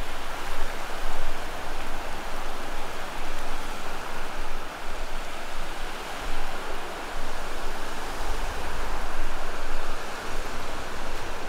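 Steady rushing wash of small surf breaking and running up a flat sandy beach, with a gusting low rumble of wind on the microphone.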